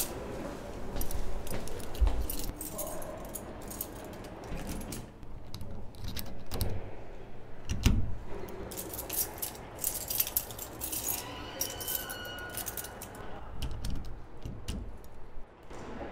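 A bunch of metal keys jangling and clinking in repeated bursts, with a dull thump about eight seconds in.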